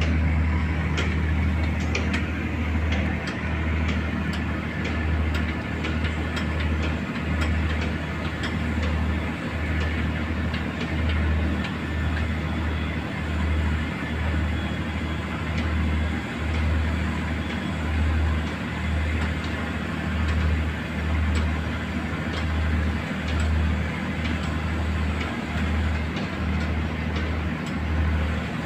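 Fishing boat's inboard engine running steadily under way, heard from on board: a deep low rumble that throbs about once a second.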